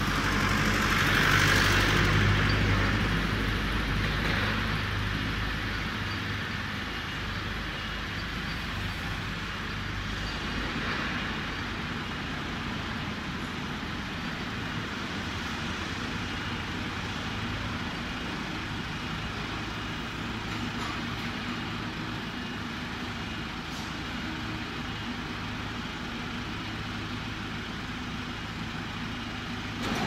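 Engine of a crawler skid steer loader running while its lift arms are worked, louder with a hiss for the first few seconds, then steady.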